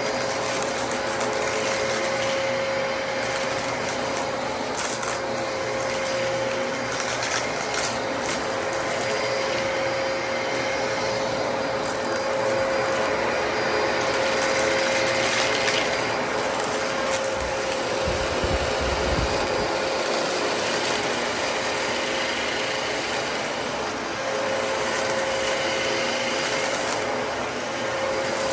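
Dyson DC33 upright vacuum cleaner running steadily, with a constant motor whine over the rush of air. Scattered sharp clicks and crackles come through, and a brief low rumble about two-thirds of the way through.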